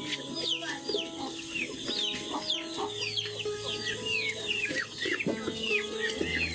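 Chickens chirping: many short, falling high-pitched chirps, several a second, over background music with long held low notes.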